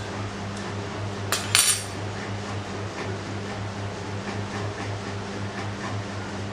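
A short sharp clink and then a ringing clatter of kitchenware, about a second and a half in, over a steady low hum.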